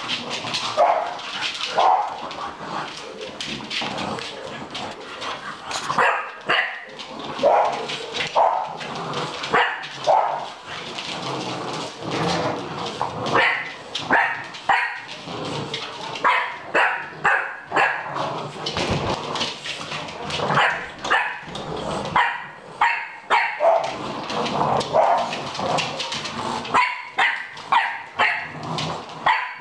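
English bulldog puppies barking over and over in rough play, short barks coming singly and in quick runs.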